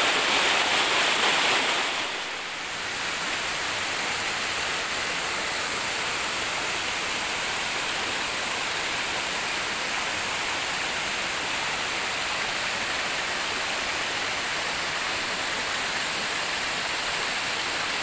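Water rushing down a cascade of small waterfalls over mossy rock steps, a steady full rush. It is louder for the first two seconds, then a little softer and even.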